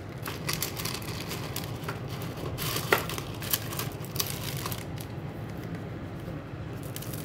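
Dry cat food kibble rattling and crunching as a hand digs into a stainless steel canister, with scattered sharp clicks of pellets against the metal. The rattling grows quieter after about five seconds.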